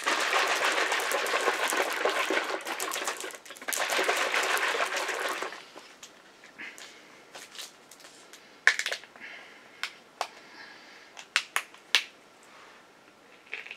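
Close crackling rustle of handling noise for about five and a half seconds, then quieter, scattered sharp clicks and taps as a plastic drink bottle is handled.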